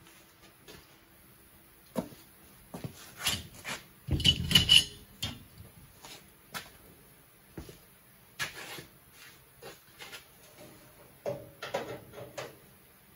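Locking C-clamp pliers being handled, opened and snapped onto a radiator support's sheet-metal flanges: scattered metallic clicks and clanks. The loudest is a short burst of clanking about four seconds in, with a brief metallic ring.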